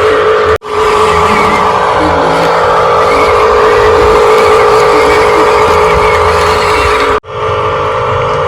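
Radio-controlled construction vehicle's electric motor and gearbox whining steadily, breaking off abruptly twice: about half a second in and near the end.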